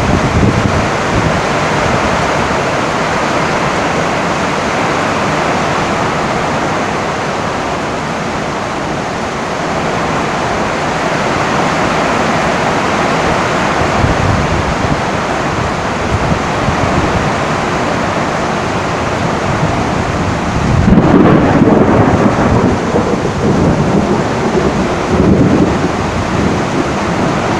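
Heavy rain falling steadily on a tin roof, with a roll of thunder rumbling in about three-quarters of the way through and going on for several seconds.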